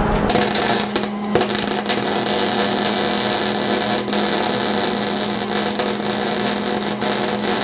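Wire-feed welder arc crackling steadily as a bead is laid on a steel tube frame, with a short break just after a second in. A steady low hum runs underneath.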